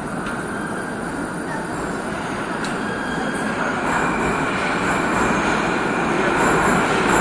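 Metro train rumbling along the platform, growing steadily louder, with a high whine joining about four seconds in.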